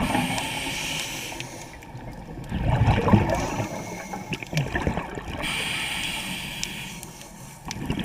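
Scuba diver breathing through a regulator underwater: a hiss on each inhale, then a burst of gurgling exhaust bubbles on each exhale, twice over.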